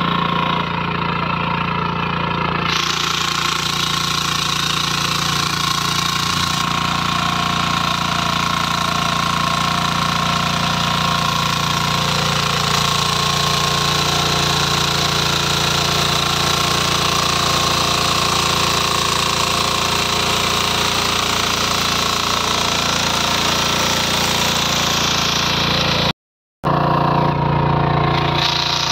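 Shrachi power weeder's single-cylinder engine running steadily under load while its rotary tines till the soil, with a brief gap near the end.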